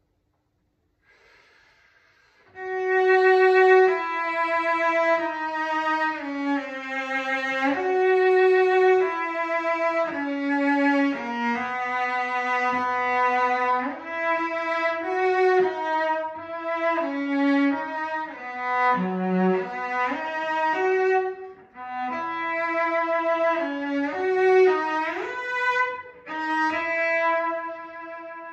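Solo cello played with the bow: after a couple of seconds of near silence, a melody begins, one sustained note at a time, mostly in the cello's upper-middle range.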